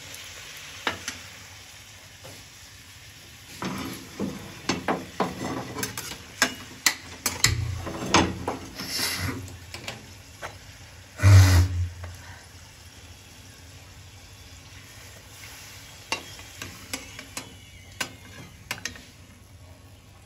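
A puri deep-frying in hot oil in a kadhai, sizzling steadily, while a metal spoon clicks and scrapes against the pan in two spells. One heavy knock about eleven seconds in is the loudest sound.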